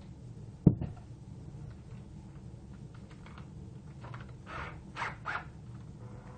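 A sharp knock with a short low ring, then about four seconds later three quick rasping squeaks, as a cordless drill fitted with a threaded steel bar as a home-made centrifuge is handled and adjusted; the drill's motor is not running.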